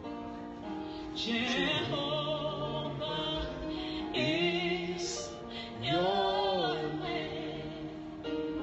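A gospel worship song playing: a singer holds long notes with vibrato over a steady accompaniment.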